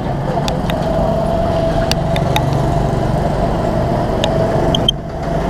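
Go-kart engines running as the karts race round the track, a steady whine over a low rumble, with a brief drop in level near the end.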